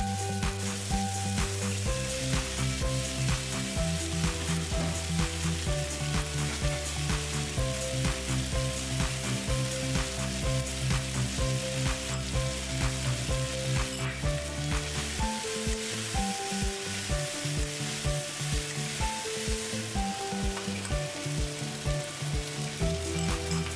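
Stir-fried shallots, garlic, capsicum and fried chicken drumettes sizzling in a wok while being stirred, under background music with a steady beat.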